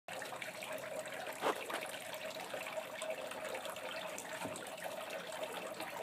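Small faux-rock patio water fountain trickling and splashing steadily, with a brief louder splash about a second and a half in.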